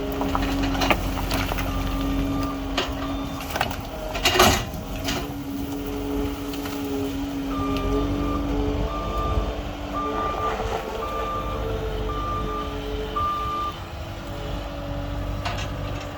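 Skid steer loader running steadily, with a loud metallic clank about four seconds in. In the second half its backup alarm sounds about six beeps, roughly one a second, as it reverses.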